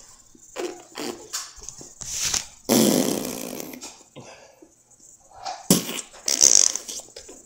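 Air forced out of puffed-out cheeks through closed lips as fingers squeeze the cheeks, in rude, fart-like sputters. One long sputter comes about three seconds in, then shorter puffs and pops near the end.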